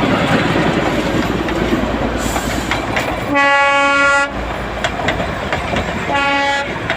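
Darjeeling Himalayan Railway toy train running with a steady rumble and clatter of wheels, sounding its horn twice: a blast of about a second a little over three seconds in, and a shorter one near the end.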